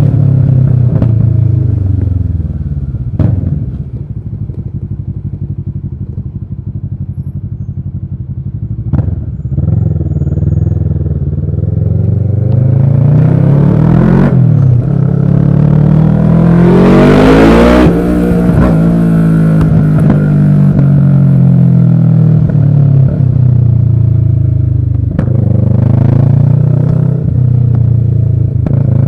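2009 Kawasaki ER-6n 649 cc parallel-twin engine with an Arrow exhaust, revving up and down through the gears under way. It drops in pitch at the start and runs lower and quieter for a few seconds. It then climbs hard to a loud peak with a rush of wind noise a little past halfway, falls away with the next shift, and settles at a steady pitch. Short sharp clicks at a few of the changes.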